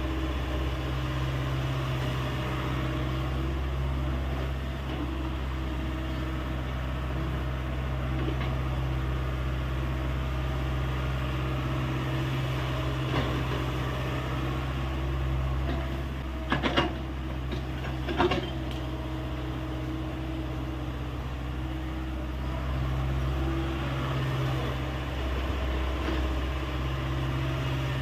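Hyundai 85A excavator's diesel engine running steadily, with a cluster of sharp knocks a little past the middle and one more shortly after.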